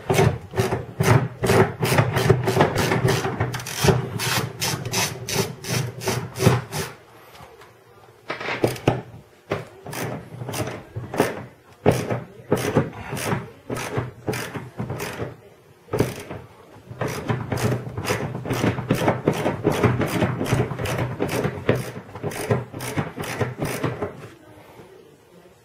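Socket ratchet clicking fast and evenly, about four or five clicks a second, in three long runs with short breaks, as a 15 mm seat bolt is backed out.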